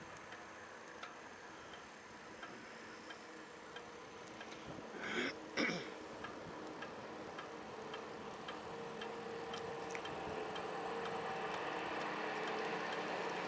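Bicycle ticking lightly and regularly while riding, about three ticks every two seconds. A brief louder noise comes near the middle, and a motor hum grows steadily louder over the second half.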